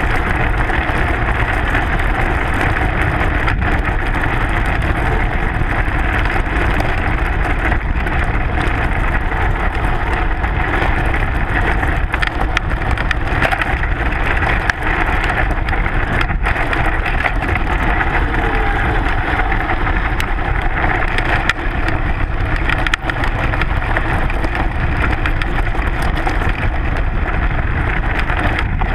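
Steady loud rumble and rattle of a mountain bike rolling fast down a dirt and gravel trail, as heard from a GoPro mounted on the front fork: tyre noise on loose stones, with clattering vibration through the fork and many small clicks of gravel.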